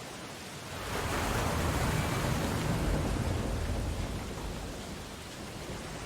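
Ocean surf: a wave breaks about a second in, the rush of water swells and then slowly fades back into the steady wash of the sea.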